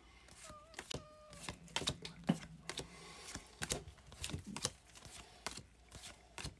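Pokémon trading cards being flipped through one at a time by hand: light, irregular clicks and flicks as each card slides off the stack onto the back.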